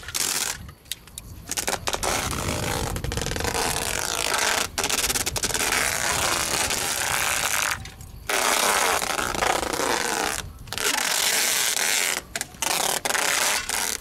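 Brown packing tape being pulled off its roll and wrapped around a refrigerator's door, with a rasping screech in several long pulls broken by short pauses.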